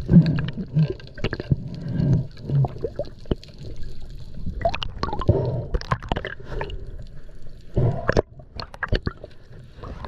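Underwater sound through a submerged camera: water gurgling and sloshing, with many scattered sharp clicks and short knocks.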